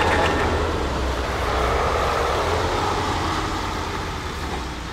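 Tanker truck driving past on a wet road: its diesel engine rumbles under a steady tyre hiss, growing fainter as the truck moves away.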